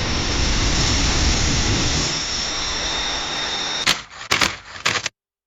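A steady hissing whirr with a heavy low rumble, then three sharp camera-like clicks in the last second before the sound cuts off abruptly.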